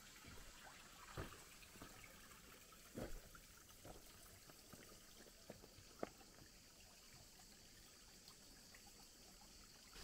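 Faint, irregular footsteps knocking and scuffing on the rocks and gravel of a dry stream bed, with a sharp knock about six seconds in.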